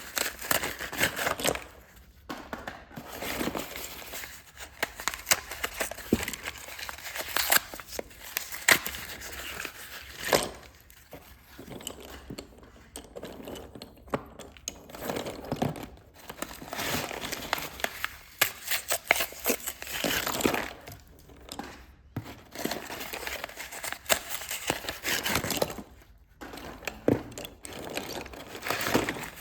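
Slate pencils being crushed and crumbled by hand, a dry crackling and crinkling that comes in irregular bursts with brief pauses between them.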